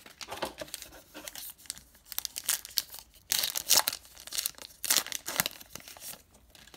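Plastic cello pack of basketball trading cards being handled and torn open by hand, its wrapper crinkling and tearing in irregular bursts, the loudest over the second half.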